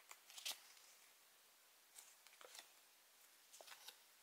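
Faint crinkles and ticks of a small paper card being handled between the fingers, in three brief clusters: near the start, about two seconds in, and near the end.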